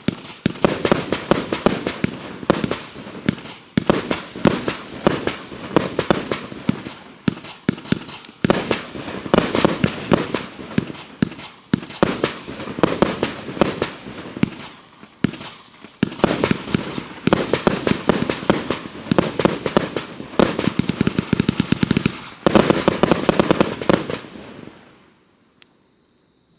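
A 100-shot compound firework battery of about 30 mm calibre firing, launches and bursts following each other in rapid salvos. The firing thins out and stops about 24 seconds in.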